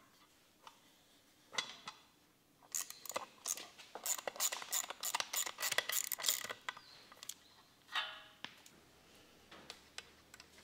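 Small metal parts of a carburetor accelerator linkage clicking and clinking as they are fitted by hand: a fast run of light clicks for a few seconds, then a short rattle.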